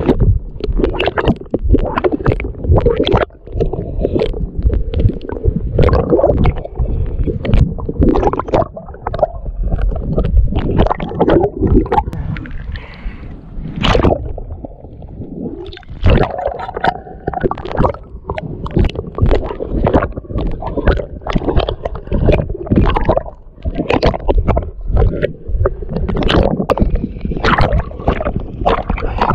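Sea water sloshing, gurgling and splashing around a half-submerged camera as it is carried through shallow water, in loud, irregular surges.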